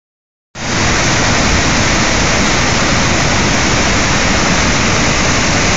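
Paterson's Great Falls on the Passaic River in flood, a dense, steady roar of falling water at high flow, starting about half a second in.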